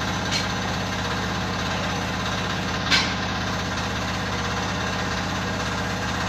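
An engine idling steadily with a fine, even pulse, with a short sharp click about three seconds in and a fainter one near the start.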